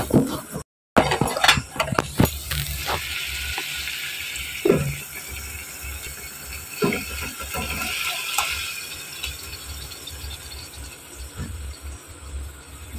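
Metal clinks and scrapes of a steel mixer jar knocked against the rim of a metal pot as tomato-onion purée is poured into hot oil, over a soft sizzle. The clicks are densest in the first few seconds.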